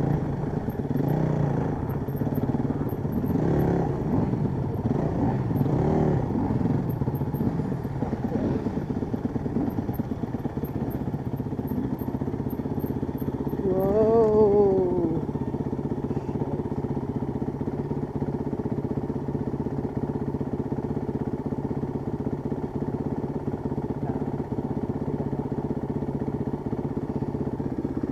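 Honda CRF dirt bike's single-cylinder four-stroke engine, heard close up from the rider's seat, running at shifting revs over the first several seconds. About halfway it revs up sharply and drops back, the loudest moment, then settles to a steady idle.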